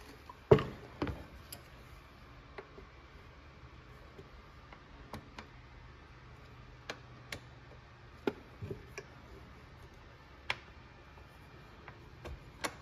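Hand tools knocking and clicking against the metal handlebar and mounts of a Husqvarna 372XP chainsaw as the handlebar and anti-vibration spring are refitted. Two louder knocks come about half a second and a second in, then single sharp ticks every second or two.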